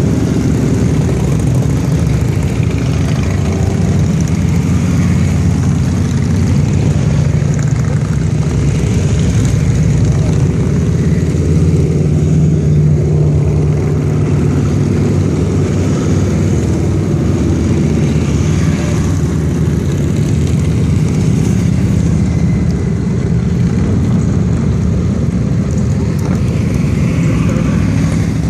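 A long line of motorcycles riding past one after another, their engines running in a steady low rumble that never lets up.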